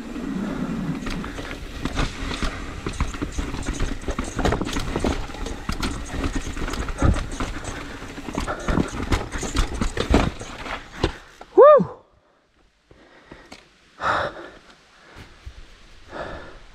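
Mountain bike rolling over a wooden boardwalk and then a rocky, rooty trail, with tyres, chain and frame clattering over every bump. About twelve seconds in, the disc brakes give a short, loud squeal as the bike stops, and after that there are only a few faint sounds.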